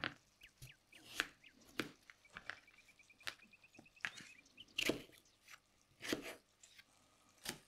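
Kitchen knife slicing peeled raw potatoes on a cutting board: quiet, separate cutting knocks at an uneven pace, roughly one a second.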